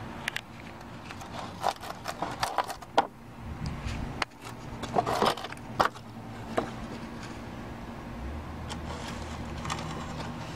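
Handling noise: scattered sharp clicks and short scrapes over roughly the first six seconds, then only a steady low hum.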